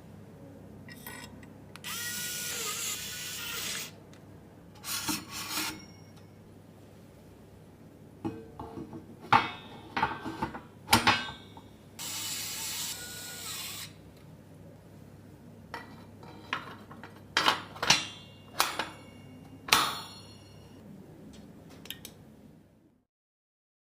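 Sounds of a PC being assembled: two runs of about two seconds of a small electric screwdriver, at about two seconds and about twelve seconds in. Scattered sharp clicks and clinks of parts and screws being handled come between and after them, some ringing briefly.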